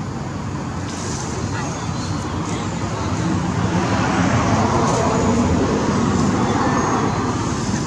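Steady outdoor rushing noise that swells from about three seconds in and eases near the end.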